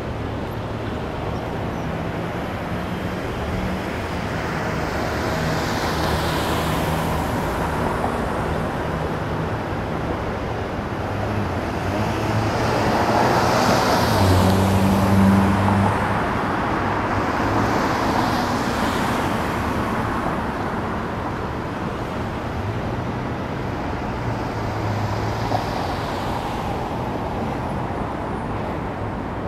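Street traffic: a steady wash of road noise that swells as several vehicles pass, loudest about halfway through, over a low, broken engine drone.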